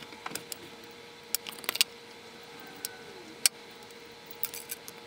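A glass wine bottle handled and turned slowly in the hands: scattered small, sharp clicks and taps of fingers and a ring against the glass, over a faint steady hum.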